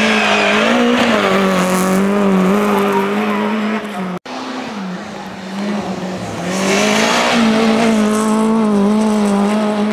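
Rally car engines held at high revs while the cars slide sideways through snowy corners, the note wavering slightly under throttle. The sound breaks off about four seconds in, at a change to a second car, whose engine dips and then climbs back to a high, steady pitch about two and a half seconds later.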